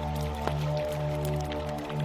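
Meditative healing drone music: a deep held low tone under several steady higher tones, with no beat. A couple of faint drip-like clicks sound about half a second and a second and a half in.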